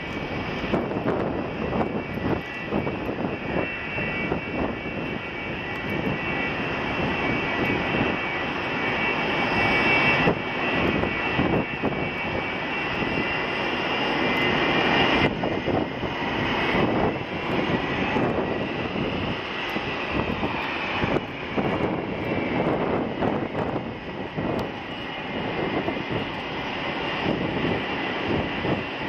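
Boeing 747-400F freighter's four turbofan engines running at taxi power: a steady rush with a high engine whine over it, the whine bending in pitch about halfway through as the aircraft moves past.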